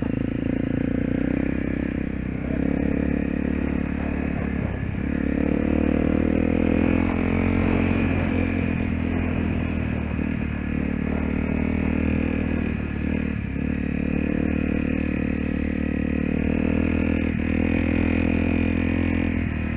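Honda dirt bike's single-cylinder four-stroke engine running under throttle while being ridden over grass. The engine note dips briefly about five times as the throttle is eased, then picks up again.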